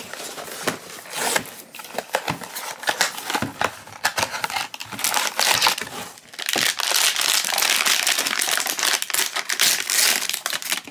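A small cardboard blind box being opened, with scattered clicks and scrapes of the flaps, then a foil figure pouch crinkling continuously as it is handled and torn open, from a little past the middle.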